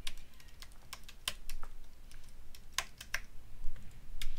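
Typing on a computer keyboard: irregularly spaced keystroke clicks as an email address is typed in, with a few louder strokes.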